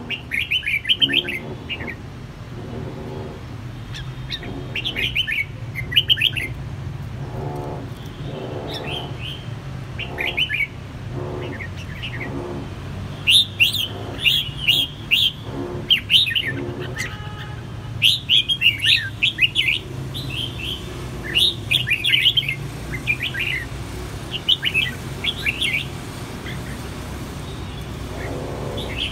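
Caged red-whiskered bulbuls singing in short, bright, chirpy phrases, one burst after another, as two males answer each other in competitive song. A steady low hum runs underneath.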